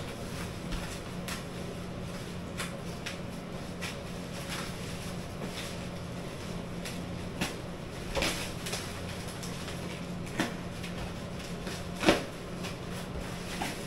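Plastic parcel packaging being handled and pulled open, with scattered crinkles and clicks and a sharper knock near the end, over a steady low hum.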